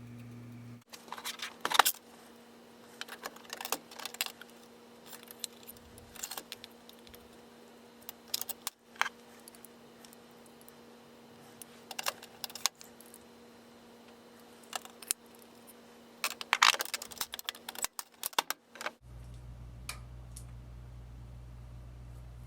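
Scattered metallic clinks and clatter of small tools and metal parts being handled. A machine tool's motor hum stops about a second in and starts again near the end.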